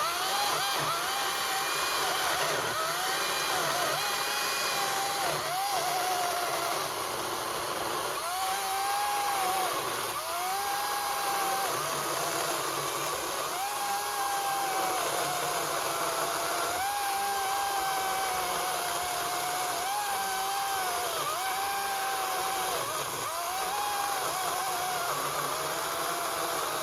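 Ego 56-volt battery chainsaw ripping lengthwise into the end grain of a dry oak log. Its electric motor whines steadily, the pitch sagging again and again as the chain bogs into the tough end grain and climbing back as the load eases.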